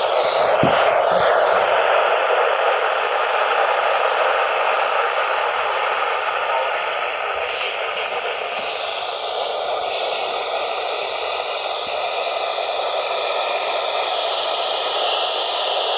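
Weather radio receiver putting out steady static hiss with no intelligible broadcast, the signal faded out, with a few crackles about a second in.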